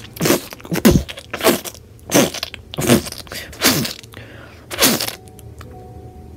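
A person's voice making a rapid series of short, harsh cries, each falling in pitch, about one every two-thirds of a second, with a crunching edge. It stops about five seconds in.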